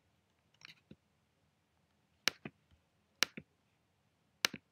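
Computer mouse being clicked while working through software menus: a few faint clicks just under a second in, then three sharp clicks, each followed quickly by a second one, about a second apart.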